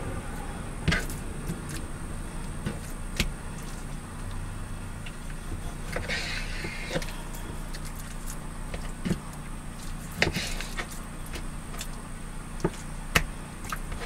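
Kitchen knife slicing raw chicken breasts on a plastic cutting board, the blade knocking on the board now and then, over a steady low hum.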